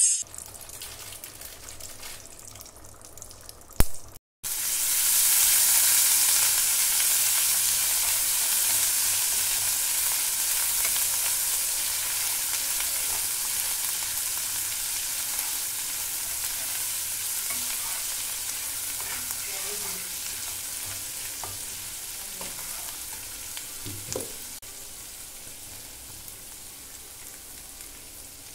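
Hot oil sizzling in a nonstick frying pan around curry leaves and chilli and turmeric powder, stirred now and then with a steel spatula. After a click and a brief dropout about four seconds in, the sizzle comes in loud and then slowly dies down.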